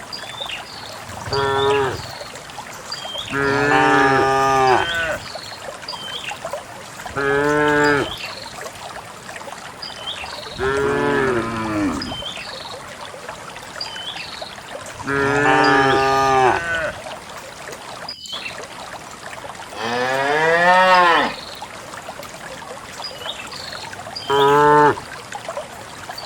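Cows mooing: about seven separate calls a few seconds apart, each lasting a second or two. The call about two-thirds of the way through rises and then falls in pitch.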